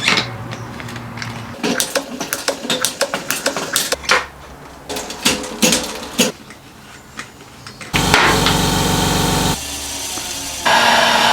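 Mountain-bike build sounds: a quick run of sharp tool clicks, taps and ratcheting on bike parts. Near the end comes a steady buzzing rattle lasting about a second and a half.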